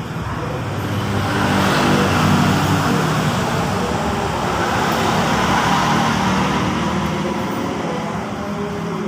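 Road traffic: a motor vehicle's engine running close by, with the noise swelling about two seconds in and then holding steady.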